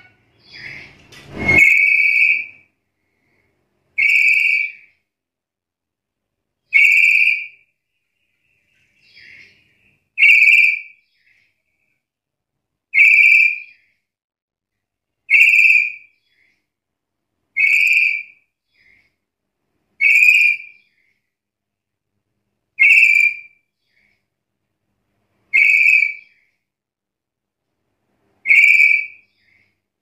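Black-capped lory (Lorius lory) giving a short, loud, high-pitched call over and over, about eleven times, once every two and a half seconds or so, each call less than a second long.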